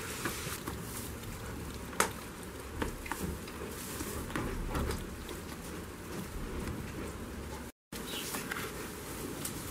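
Goats rustling through hay and straw, with scattered small crackles and one sharp click about two seconds in; the sound drops out for an instant near the end.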